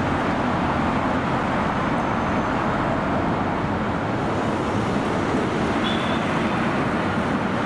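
Steady road traffic noise: an even rush of tyres and engines on the road, with no siren sounding.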